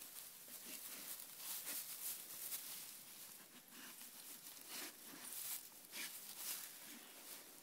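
Faint, irregular rustling and crackling as two dogs nose and root about in dry grass.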